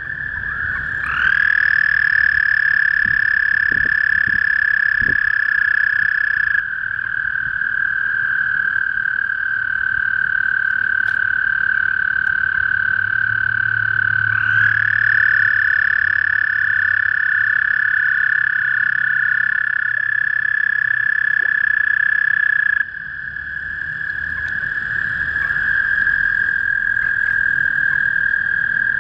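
Male toads calling: long, steady, high-pitched trills that overlap. One starts about a second in, a second joins about halfway, and others stop and start throughout.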